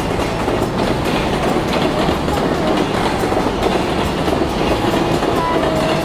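Long container freight trains rolling past on several tracks. The steady rumble is dotted with the clickety-clack of the wagons' wheels over rail joints.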